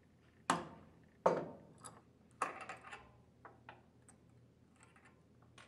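Two sharp strikes of a soft-headed hammer on a spanner wrench, breaking loose the lock nut on a gear pump's shaft, each with a short metallic ring. A lighter clink follows, then a few small metal clicks as the lock nut and lock washer come off the shaft.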